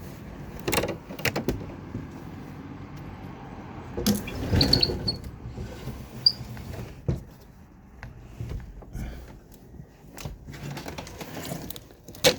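A heavy window air conditioner being lifted and handled: scattered knocks and clunks of its casing against the window frame, with scrapes and a brief squeak.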